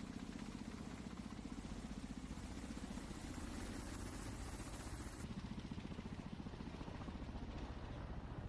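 Ka-52 attack helicopter running, its coaxial rotors giving a steady, fast beat over the engine noise.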